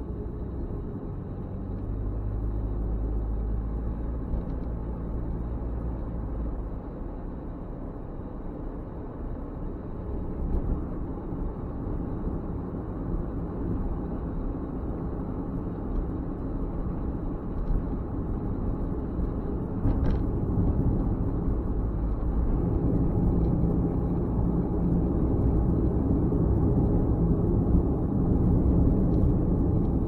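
Road noise of a moving car heard from inside the cabin: a steady low rumble of tyres and engine that grows louder in the second half, with one brief click about twenty seconds in.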